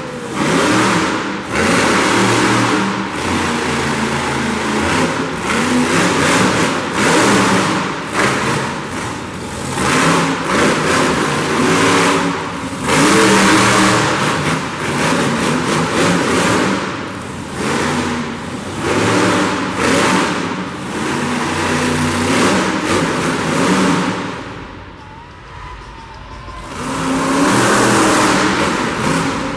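Monster truck engine revving hard in repeated rising and falling surges. It eases off briefly near the end, then revs up again.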